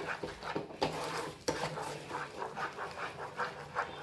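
Wooden spatula stirring and scraping thick moong dal halwa mixture, with sugar just stirred in, around a pan, in quick repeated strokes a few times a second.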